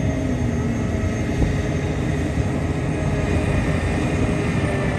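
Heavy construction machinery running steadily: a continuous low diesel rumble with faint steady whines above it.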